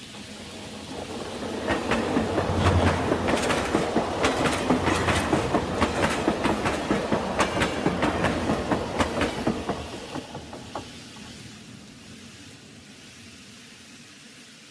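Model train running along layout track: a rumble with rapid clicking of wheels over the rail joints, building over the first couple of seconds and fading away after about ten seconds.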